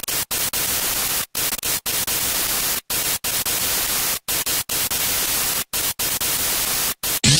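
Radio static: a steady hiss between stations, cut by brief dropouts to silence about nine times at uneven intervals, with a short swept tone at the very end.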